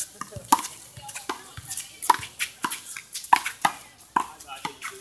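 Rubber handball being slapped by hand and rebounding off the wall and court during a rally: about ten sharp smacks at an uneven pace.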